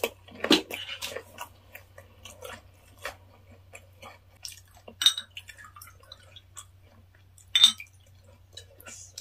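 Close-miked chewing of a mouthful of raw fish and green chili pepper: soft, wet mouth clicks at irregular intervals, with a sharper click about five seconds in. Near the end, soju is poured from a glass bottle into a shot glass.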